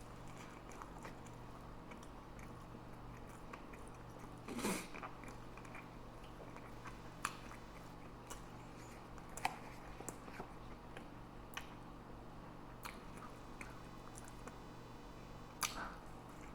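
A person chewing a Big Mac with the mouth close to the microphone: quiet, wet chewing with scattered small mouth clicks, and two louder mouth sounds, one about four and a half seconds in and one near the end. A steady low hum runs underneath.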